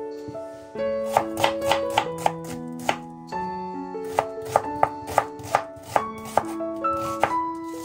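Chef's knife chopping an onion on a wooden cutting board: quick, sharp knocks of the blade on the board, about three a second, in short runs. Light melodic background music plays under the chopping.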